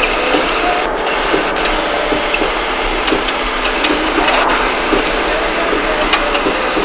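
A vehicle running, heard as a steady, loud rushing noise with a faint engine hum under it.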